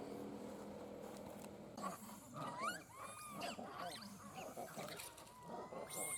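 Monkeys squealing and screeching, starting about two seconds in: a rapid run of short, high calls that rise and fall in pitch.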